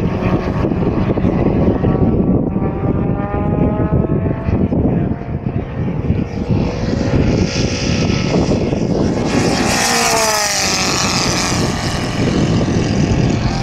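The 300cc inline four-cylinder engine of a giant-scale radio-controlled P-51 Mustang runs in flight as the model makes a flyby. Its tone grows louder and drops in pitch as it passes close, about ten seconds in. Heavy wind noise on the microphone runs underneath.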